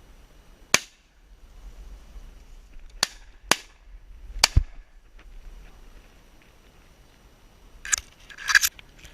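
Shotgun shots fired at wood pigeons: four sharp reports, one about a second in, then three more close together between three and four and a half seconds. Near the end come two short, noisy rustling sounds.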